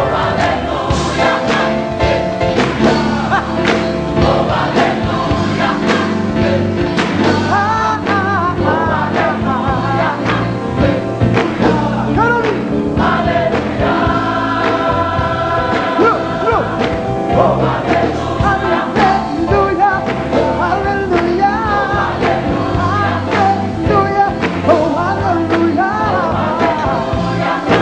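Gospel choir singing live with band accompaniment and a steady beat, a lead voice bending and sliding over the choir. About halfway through the choir holds a chord for a couple of seconds.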